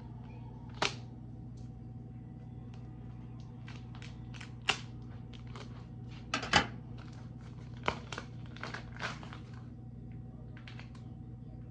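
Plastic packaging being handled and crinkled, with scattered short crackles and knocks, the loudest about six and a half seconds in, over a steady low hum.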